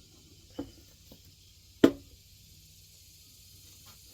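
Wooden workpieces knocking together as they are handled and set in place: a couple of light knocks, then one sharp, loud knock about two seconds in.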